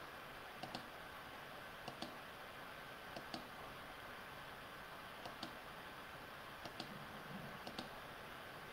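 Computer mouse button clicking: about six quick press-and-release clicks spaced a second or so apart, over a faint steady hiss.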